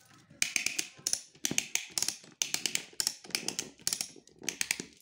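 Manual carton strapping tensioner being ratcheted. The lever is worked back and forth and the ratchet clicks in quick clusters, about seven in five seconds, drawing the strap tight.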